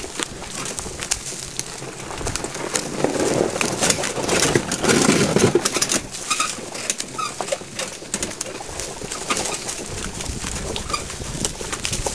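Pony pulling an iBex wheelchair cart over a rutted track: hooves and wheels clattering, with many short sharp knocks and a heavier rumble for a few seconds in the middle.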